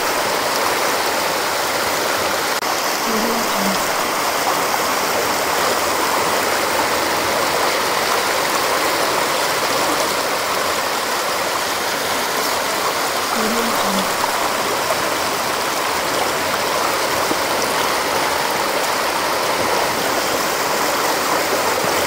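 Wild river flowing: a steady, even rush of water.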